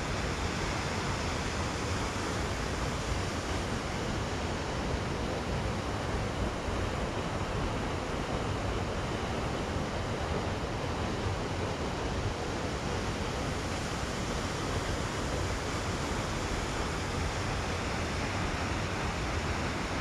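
Steady rushing of the Kinchkha waterfall, a tall waterfall dropping into a canyon, heard as an even noise with no breaks.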